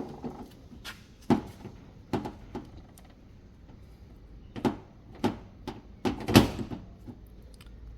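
A series of separate knocks and clicks as the washing machine's power filter is handled and fitted back in place. The loudest clatter comes about six seconds in.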